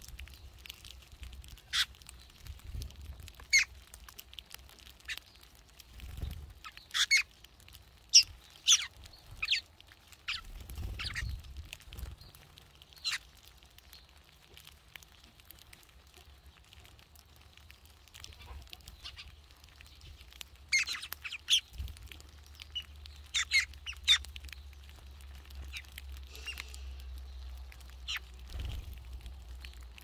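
A feeding flock of red-billed queleas and weavers giving short, sharp chirps in scattered clusters, busiest about a quarter of the way in and again past two-thirds, over a low rumble.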